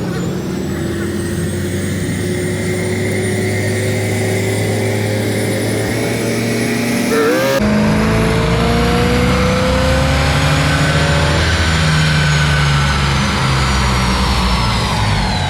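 Car engine under hard acceleration, its note climbing steadily. After an abrupt cut about seven and a half seconds in, an engine note climbs again, with a high whine that slides down in pitch near the end.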